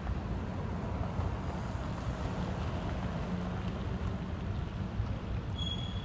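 Road traffic: cars and a van driving past, a steady low rumble of engines and tyres. A short high-pitched whistle comes near the end.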